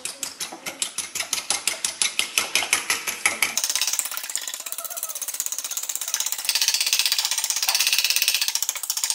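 Metal fork whisking egg into buttermilk in a ceramic bowl, the tines clicking against the bowl about seven times a second. After about three and a half seconds the whisking speeds up into a fast, continuous clatter, which stops near the end.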